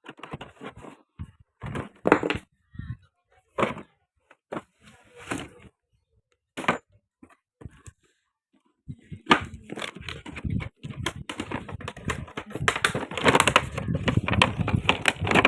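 Packaging being handled and unwrapped: scattered rustles and knocks, then continuous crinkling and rustling from about nine seconds in.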